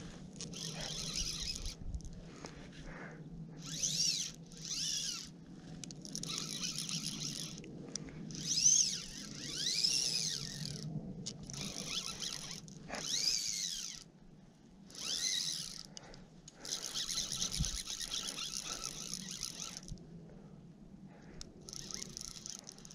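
Fly line being stripped in through the rod guides in about ten short pulls. Each pull is a hissing, squeaky zip that rises and falls in pitch, with short pauses between them.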